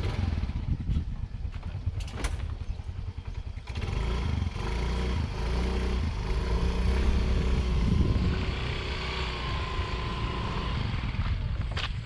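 Small motor scooter's engine running with a low, even pulse, getting louder about four seconds in as the scooter is ridden up close.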